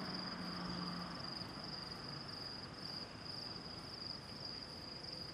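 Insects trilling in the grass: a faint, steady, high-pitched trill with a light even pulse.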